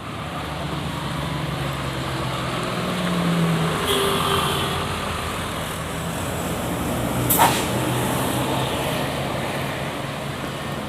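Large road vehicle engines running on a road with traffic noise, the engine hum steady throughout. A short sharp hiss about seven seconds in is the loudest moment.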